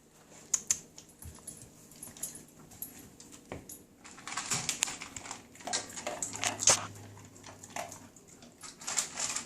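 A dog chewing and crunching, a run of quick clicking bites that gets busier and louder about four seconds in.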